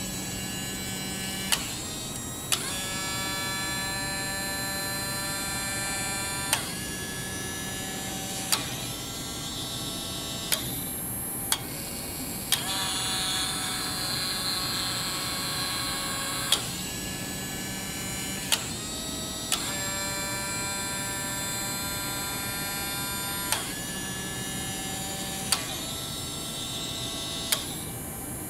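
Relays clicking every one to four seconds as the PLC switches outputs. Between the clicks, the small DC gear motors of an OWI Robotic Arm Edge whine, and the whine's pitch changes at each click as a different motor starts or reverses while the arm runs through its programmed sequence.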